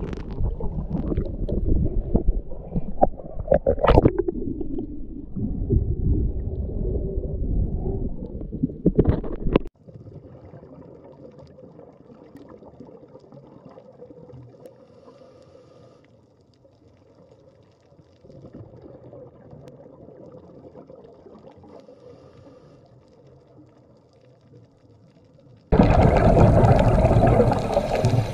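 Underwater camera audio: muffled water sloshing and gurgling, loud with a few sharp knocks for about the first ten seconds, then cutting to a faint hiss. A loud rush of water starts abruptly near the end.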